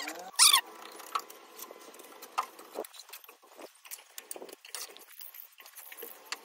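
Steel bricklaying trowel tapping bricks into place and scraping mortar from a metal pan: a run of light clicks and scrapes. A brief sharp squeal comes about half a second in.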